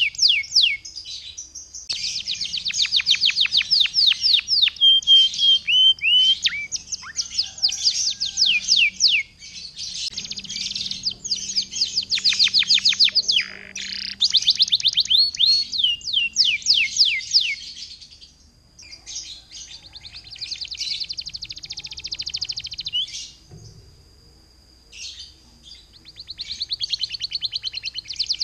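Domestic canary singing: long phrases of fast rolling trills built from rapid downward-sweeping notes, with short breaks between phrases. In the later part a thin, steady, high note runs under the trills.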